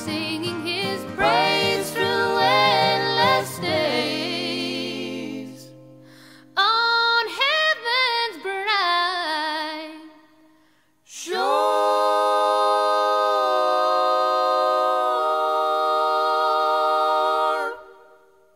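Unaccompanied singing of a slow song, with a wavering vibrato on the notes. It ends on one long held final note that fades out just before the end.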